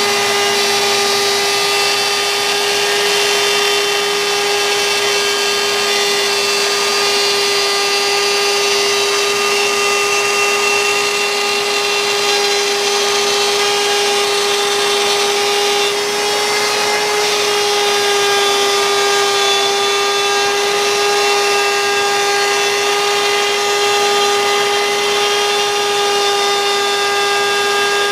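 CNC router spindle running at a steady high speed, a constant high whine over a hiss, as the bit cuts wood; the pitch sags briefly a little past halfway, as if under heavier load.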